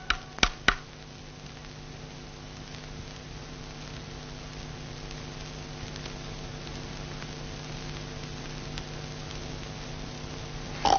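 Three quick knocks in the first second as a long-stemmed tobacco pipe is rapped against a wooden doorsill. Then a steady hum and hiss from the old soundtrack.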